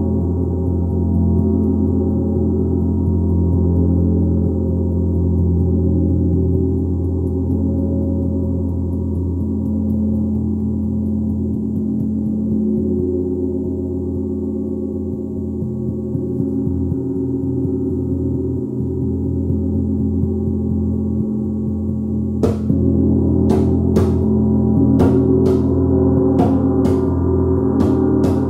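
A gong resonating in a dense, sustained wash of many overlapping low tones that slowly swell and ebb. In the last six seconds a run of about eight sharp, irregular taps sounds over the continuing drone.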